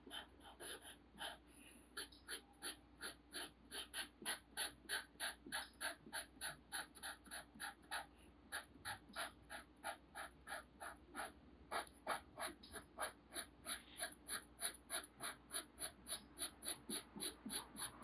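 Fine-point Sharpie marker scratching on paper in quick, even back-and-forth strokes, about four a second, as an area is coloured in, with a short pause about two-thirds of the way through.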